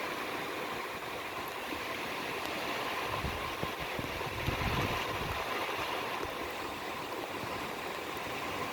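Heavy rain pouring down in a steady, even hiss. A low rumble swells and fades about halfway through.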